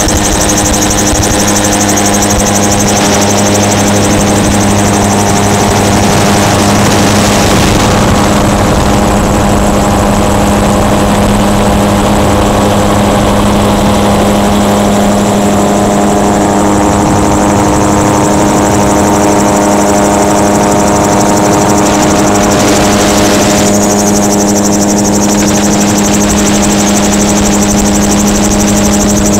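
Gyrocopter engine and propeller running at a steady, unchanging pitch in flight, with the rush of wind over the open cockpit mixed in.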